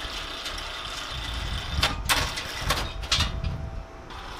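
Several sharp metal clanks and scrapes from heavy ride parts being handled, over a steady engine rumble. The clanks come in a cluster through the middle, and the background drops slightly near the end.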